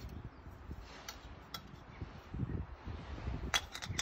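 Handling clicks and light clinks of a Jetboil MiniMo burner and its gas canister being fitted together by hand. There are a few scattered clicks, a quick run of clicks near the end, and some low rumbles of handling.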